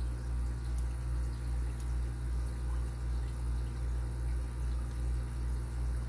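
A steady low mechanical hum that swells and fades about twice a second, with faint light ticks of a lock pick working the pins of an Abus 83AL50 padlock under light tension.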